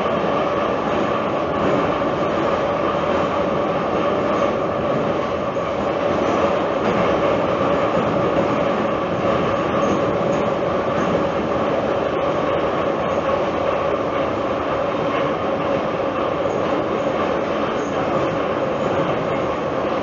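Tbilisi metro train running steadily between stations, heard from inside the carriage: a constant rumble of wheels on rail with a steady whine running through it.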